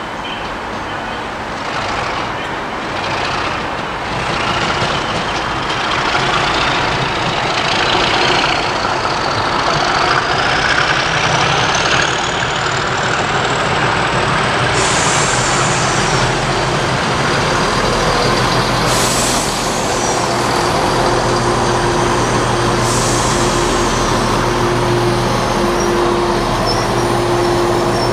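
Class 37 diesel locomotive, with its English Electric V12 engine, powering a test train away from the platform. A whine climbs steadily in pitch over the first dozen seconds or so, then settles into a steady engine drone, with a few brief hissy noises on top.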